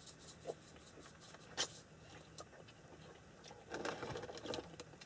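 Quiet clicks and clinks of dishes, cups and utensils being handled on a table during a meal, with one sharper click about a second and a half in and a short run of clatter near four seconds. A faint steady low hum runs underneath.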